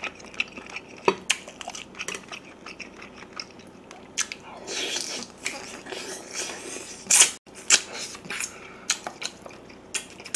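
Close-miked biting and chewing of soy-braised pork back rib meat: wet mouth sounds with many short sharp clicks, and a louder sharp sound about seven seconds in.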